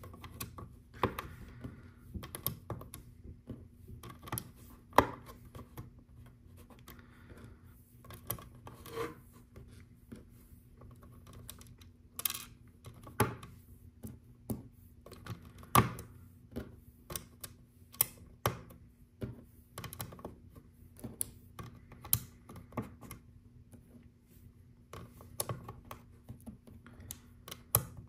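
Small plastic LEGO round tiles clicking and tapping irregularly as they are pressed onto the studs of a plate and picked from a loose pile on a tabletop.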